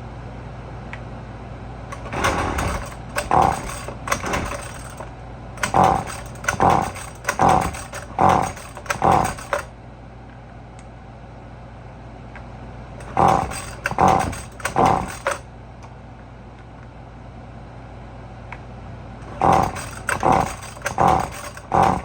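Husqvarna 128LD string trimmer's two-stroke engine being cranked on its pull-cord starter in four rounds of quick pulls, about three to five tugs each, without starting. The owner says something isn't right: the trimmer won't run.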